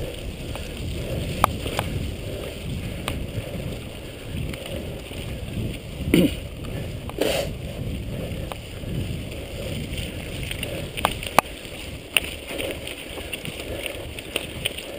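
Mountain bike riding fast down a dirt forest singletrack: a steady rumble of tyres on the trail and air rushing past, with frequent sharp clicks and rattles from the bike over bumps. Two louder knocks come about six and seven seconds in.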